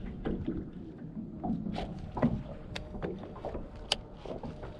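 Small waves lapping and slapping against the hull of a small fishing boat, with wind rumbling on the microphone and scattered light knocks and clicks, one sharper click near the end.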